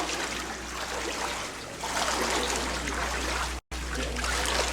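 Floodwater sloshing and trickling as people wade through it. The sound cuts out completely for a moment about three and a half seconds in.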